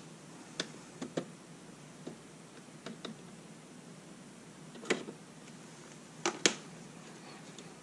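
Light clicks and taps of hands handling a box of clear plastic panels, a handful of separate knocks scattered through, with the sharpest two close together about six seconds in.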